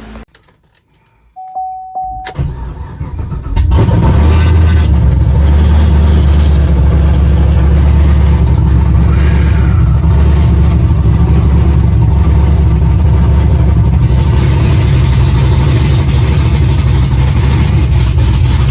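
Supercharged, big-cammed V8 of a ZL1 Camaro being started: a short beep, a second or so of cranking, then the engine catches about three and a half seconds in and settles into a loud, choppy cam idle.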